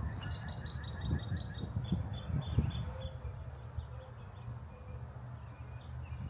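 A bird calling a quick run of short high chirps, about eight a second, for the first second and a half, then scattered chirps. Under it a steady low rumble, as of wind on the microphone, and a few dull thumps.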